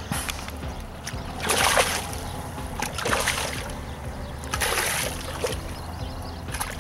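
Hooked black bass thrashing at the water's surface close to the bank, with three bursts of splashing about a second and a half apart.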